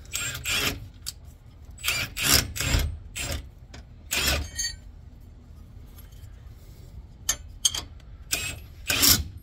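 Half-inch impact wrench run in a series of short bursts, zipping a nut down onto a shock absorber's lower mounting bolt.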